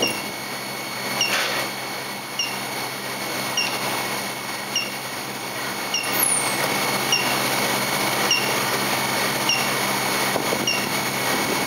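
Induction heater for forging bar stock running with a steady hum and hiss, a short chirp repeating about every 1.2 seconds. About six seconds in, as the hot billet is pulled from the copper coil, a high whine falls in pitch.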